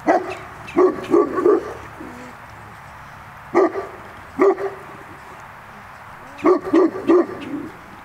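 A dog barking: about nine short barks in clusters of one to three, with pauses of a second or two between them.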